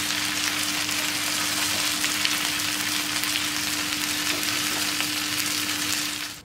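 Marinated chicken pieces shallow-frying in hot oil in a nonstick pan, a steady dense sizzle with fine crackling. A low steady hum runs underneath, and the sizzle cuts off abruptly near the end.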